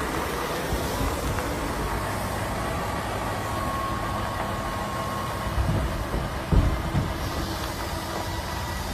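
Semi-truck's diesel engine running at low speed as the tractor-trailer moves slowly, a steady low rumble with a faint steady whine on top. A few low thumps come about six to seven seconds in.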